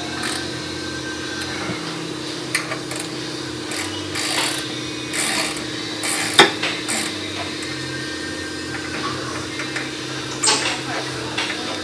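Hand tools working on metal: scattered clicks and light clinks, with one sharper clank about six seconds in, over a steady hum.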